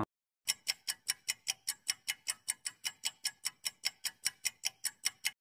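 Countdown timer sound effect: a clock ticking fast and evenly, about five ticks a second, starting about half a second in and stopping just before the end.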